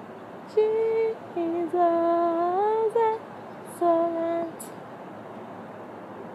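A woman humming a slow gospel melody without words, alone and unaccompanied: a handful of held notes with small slides between them. She stops a little past halfway, leaving only room hiss.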